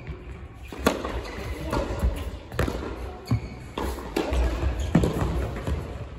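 Tennis ball struck back and forth by rackets in a rally, several sharp hits and bounces one to two seconds apart, with the ring of a large indoor tennis hall.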